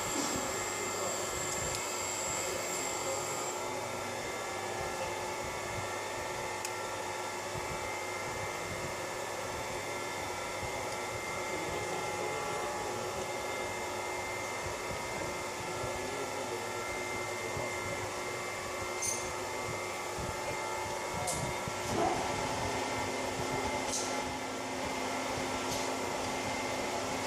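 A steady whine and hum of a running electric machine, with several fixed tones over a hiss. A few light clicks, like small metal parts or tools being handled, come near the end.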